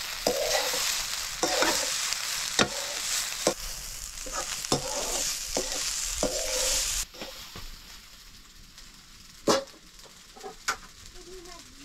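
Rice frying in a wok over a wood fire, sizzling while a spatula stirs it and knocks against the pan about once a second. About seven seconds in the sizzle drops away sharply, leaving only a couple of sharp knocks.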